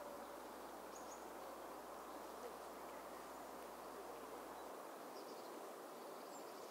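Faint outdoor ambience: a steady low hiss with a few faint, short, high chirps scattered through it.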